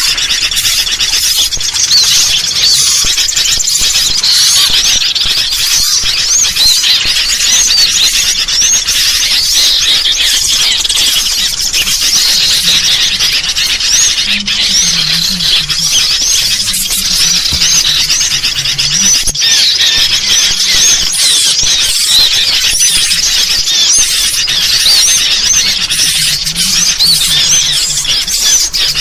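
Dense, continuous chorus of many small birds chirping and chattering at once: the noisy, agitated calls of sooty-headed bulbuls (kutilang) mixed with other small songbirds. This is a bird-lure recording made to draw small birds in.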